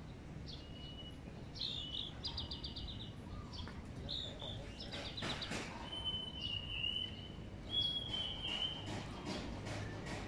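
Small birds chirping, with quick rattling trills and a couple of longer, steady whistled notes.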